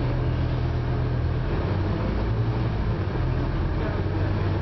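Scania Omnicity single-deck bus's diesel engine, heard from inside the passenger cabin: a steady low drone that wavers slightly in pitch, over a background of cabin and road noise.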